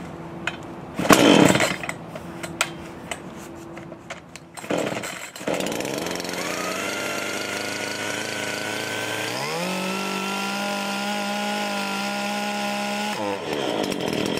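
Makita petrol chainsaw being pull-started from cold on choke: a loud pull about a second in, another pull near five seconds, then the engine catches and runs. It is revved sharply to full speed at about nine and a half seconds, held there, and drops back toward idle near the end.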